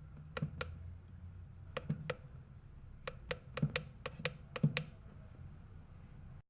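A series of about a dozen sharp, light clicks, mostly in quick pairs, from small hard tools and parts being handled while a smartphone is taken apart. A steady low hum runs underneath.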